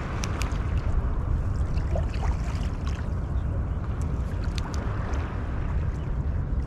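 Steady low rumble of wind on the microphone, with a few faint light clicks.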